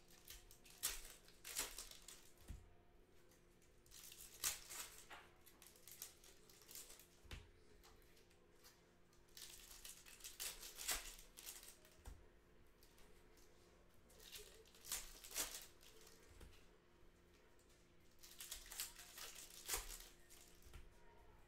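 Trading-card pack wrappers crinkling and tearing as Panini Hoops basketball packs are torn open by hand, in short scattered bursts over a faint steady hum.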